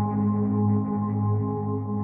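Ambient background music of steady, droning held tones, like a singing bowl.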